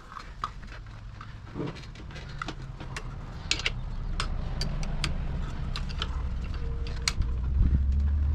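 Scattered sharp clicks and light knocks of seat and seatbelt hardware being handled during reassembly, over a low rumble that grows steadily louder toward the end.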